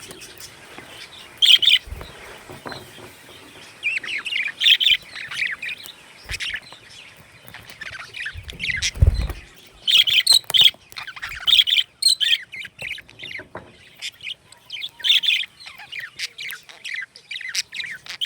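Budgerigars chirping and chattering in short, scattered bursts of high chirps and squawks. A low thump sounds about halfway through.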